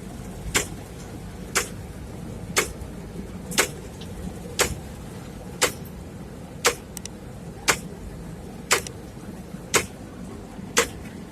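Sharp clicks evenly about once a second, eleven in all, over a low steady rumble.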